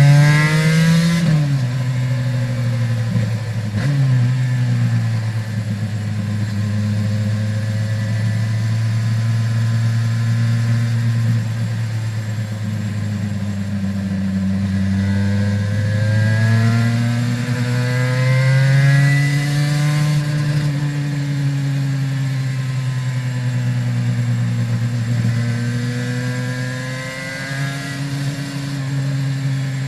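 A 2001 Aprilia RS 250's two-stroke V-twin with Arrow exhausts, heard onboard while riding. The revs drop sharply just after the start and again about four seconds in, hold fairly steady, then climb and fall away again about twenty seconds in.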